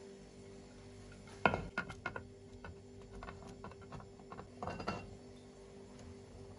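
Browned chicken wings tipped from a plate into a pot of potatoes and sauce. A sharp knock of the plate on the pot about a second and a half in, then a run of light clicks and knocks, and another short cluster near five seconds, over a faint steady hum.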